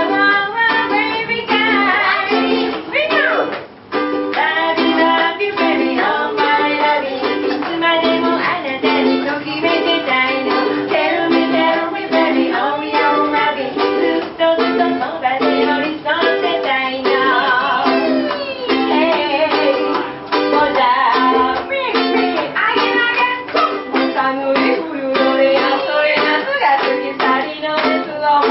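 Live ukulele band: several ukuleles strummed in a steady rhythm while a woman sings into a microphone, with a brief break in the playing about four seconds in.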